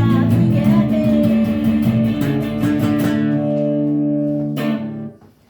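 Guitars playing the last bars of a rock song: rhythmic strumming, then a final chord left to ring out, which stops about five seconds in.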